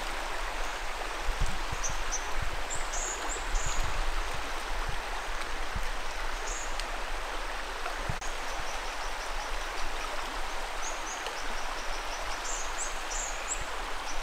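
Small birds chirping and twittering high over a steady rushing hiss, with a run of quick repeated notes about eight seconds in. A few soft low thumps sound in the first few seconds.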